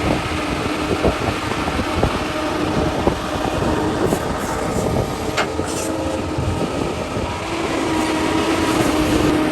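Heavy excavator at work loading a dump truck: its diesel engine runs steadily with a droning hydraulic tone, over irregular clanks and knocks of the steel bucket and rock and dirt.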